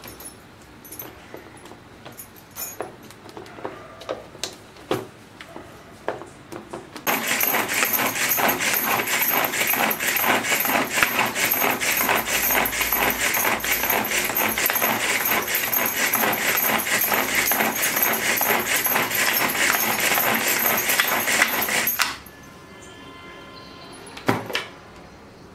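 Pigeon pull-cord hand chopper worked with repeated quick pulls, its blades spinning with a fast ratcheting whir and clatter as they chop tomato, onion, green chilli and ginger down toward a gravy-like paste. It starts about seven seconds in after a few light knocks and stops suddenly a few seconds before the end.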